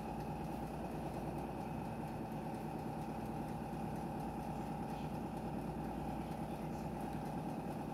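Countertop electric rotisserie oven running, its spit turning: a steady motor hum with a constant mid-pitched tone.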